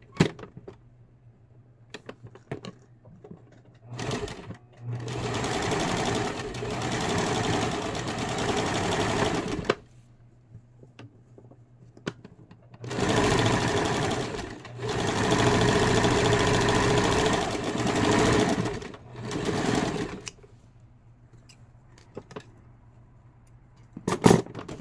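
Electric sewing machine stitching a straight seam through cotton bandana fabric. It runs in five bursts of a second to about five seconds each, with short pauses between. There is a sharp click at the start and another near the end.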